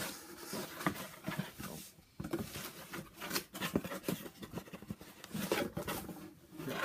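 Hands handling packaging and paper from a collector's subscription box: irregular rustling, crinkling and light taps and clicks.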